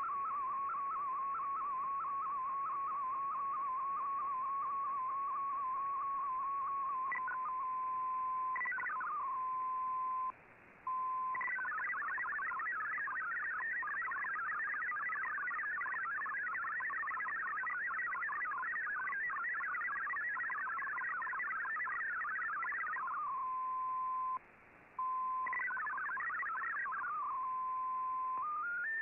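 MFSK digital-mode data signal from a shortwave broadcast, heard through a communications receiver: a fast stream of hopping beeping tones, broken in places by a steady single tone and by two brief silences about ten and twenty-four seconds in. Near the end a short run of stepped rising tones starts.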